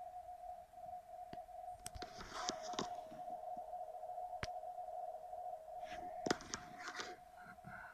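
RTTY data signal from a Yaesu FT-450 receiver's speaker: a steady tone near 700 Hz keyed rapidly between two pitches 85 Hz apart at 50 baud, carrying the German weather service's longwave marine weather forecast. Handling clicks and rustles come about two seconds in and again around six seconds, the sharpest click near the end.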